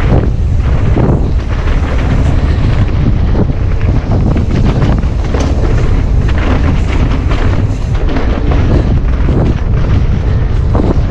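Wind buffeting the microphone of an action camera on a fast-moving mountain bike, a heavy steady rumble, with the tyres crunching over the dirt trail and the bike rattling over bumps and rocks.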